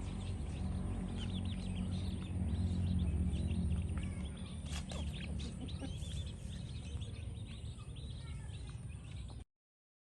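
Birds chirping: many short, high chirps over a steady low rumble. The sound cuts off suddenly about nine seconds in.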